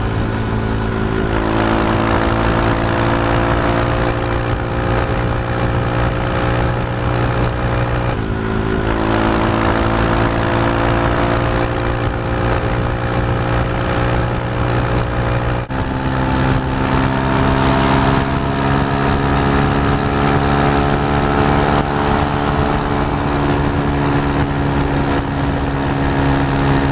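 KTM 390 Duke single-cylinder engine running hard at highway speed, with wind rush over it. The engine note steps abruptly twice, about eight and about sixteen seconds in, as the rider changes gear.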